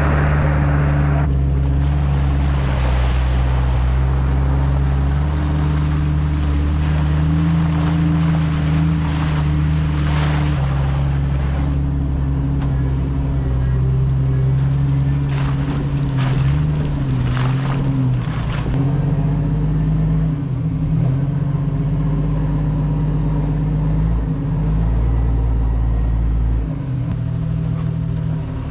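Jeep engine running steadily as it drives a rough off-road trail, its pitch stepping up and down with the throttle. A cluster of sharp knocks and rattles comes through about two thirds of the way in.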